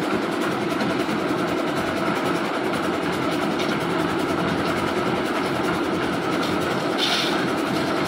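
Lift-type concrete mixer running steadily as its drum turns. Near the end there is a short rush as a pan of aggregate is tipped into the drum.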